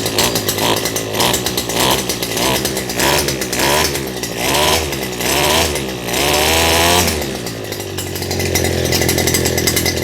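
Stihl FS 250 brush cutter's air-cooled two-stroke engine, freshly started, revving up and down in quick short blips of the throttle about twice a second. One longer rev follows about six seconds in, then the engine settles to a lower, steadier idle. It is running lean, very short of fuel.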